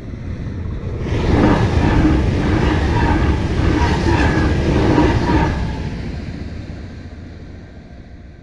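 České dráhy electric passenger train passing. The rush of wheels and air swells about a second in, stays loud for some four seconds, then fades away.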